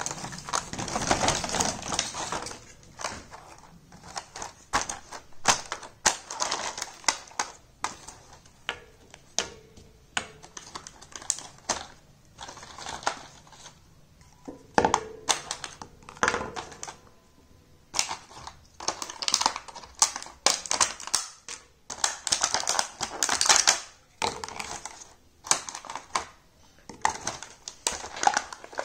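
Small plastic miniature toy pieces handled: irregular clicks and taps as parts are set down and fitted together, with a few short scraping rustles.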